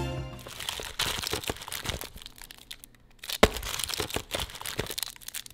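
Background music fading out at the start, then plastic candy wrappers crinkling as a hand rummages through a bowl of wrapped fun-size candy, with one sharp snap about three and a half seconds in.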